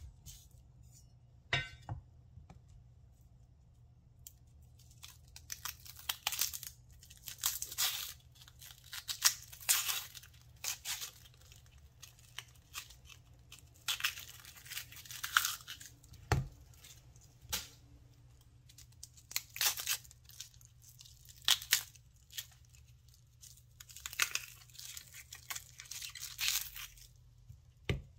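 Dry red onion skin being peeled off by hand, crackling and tearing in irregular bursts. There is one knock on the wooden cutting board about halfway through.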